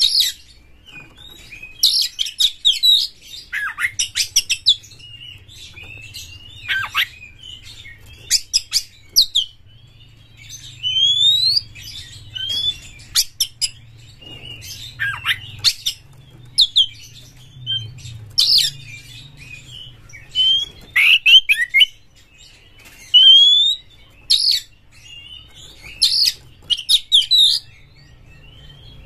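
Oriental magpie-robin (kacer) singing an aggressive song: loud phrases of rising whistles mixed with harsh, chattering notes, coming every second or two with short pauses between.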